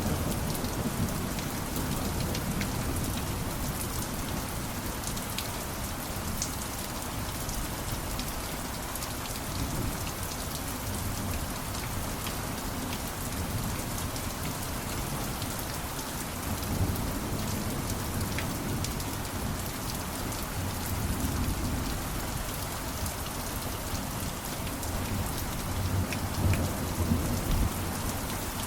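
Steady rain pattering on a surface, with low rumbles of thunder swelling up about two-thirds of the way through and again near the end.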